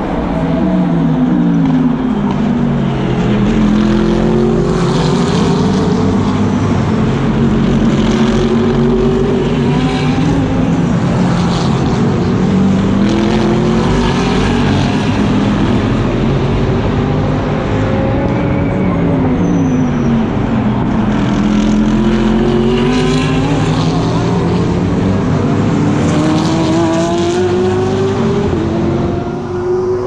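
Racing car engine at full race pace, heard onboard: its pitch climbs as it accelerates through the gears, then drops in quick steps on the downshifts, several times over.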